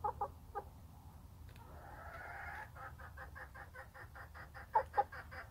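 Backyard hens clucking as they peck at the ground. A few short clucks come at the start, then a quick run of soft clucks, about four a second, through the second half, with two louder clucks near the end.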